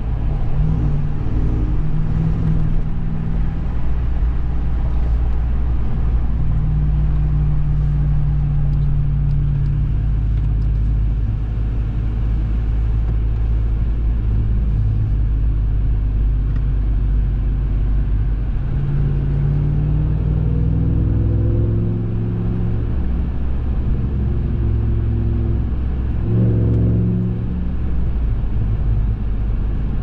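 2021 Ram 1500 TRX's supercharged 6.2-litre V8 running while driving, a steady low drone. The engine note rises as it speeds up about two-thirds of the way through, and briefly again near the end.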